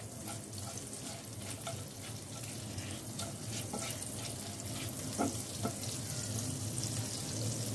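Butter and ghee sizzling with whole bay leaf, cloves and cardamom frying in a non-stick pan, a steady hiss full of small crackles, while a silicone spatula stirs. Two brief squeaks about five seconds in.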